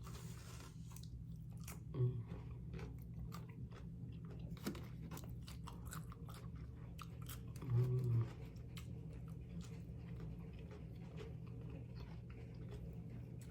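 A person chewing a mouthful of food close to the microphone: many small wet clicks and smacks, with a short low hum about two seconds in and again about eight seconds in.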